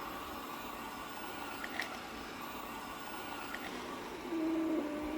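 Everybot 3iPOP robot vacuum running with a steady whir and a faint whine, with a couple of small clicks a little under two seconds in. Near the end a louder low hum with a wavering pitch comes in.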